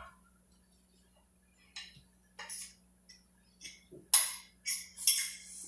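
Metal utensil scraping thick banana-oat pancake batter off a ceramic plate into a frying pan: a few faint clicks, then four louder scraping clinks in the last second and a half.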